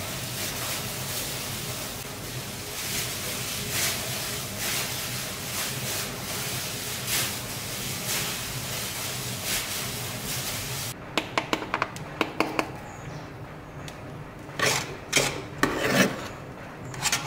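Plastic-gloved hands kneading and pressing mashed sweet potato dough on a floured metal tray: a steady rubbing with soft strokes. About eleven seconds in this gives way to a quick run of clicks and then a few louder knocks.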